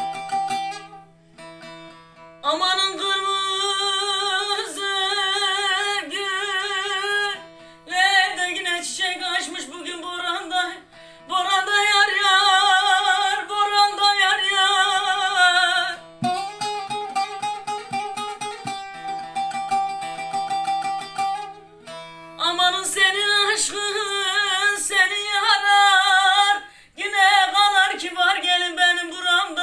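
Bağlama played alone at first, then a woman sings a Turkish folk song in long, ornamented phrases with wide vibrato, pausing briefly between phrases, over the bağlama's sustained strings.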